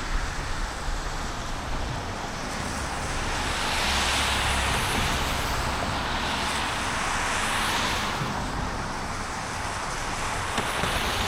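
Tyres hissing on a rain-wet road as traffic drives through the rain, with the hiss swelling twice, about four and eight seconds in.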